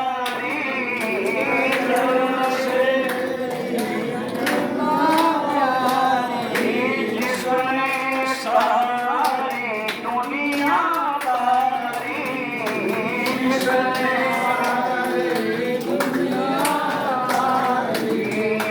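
Voices singing a Hindu devotional aarti in a continuous melodic line, with sharp percussive strokes keeping time.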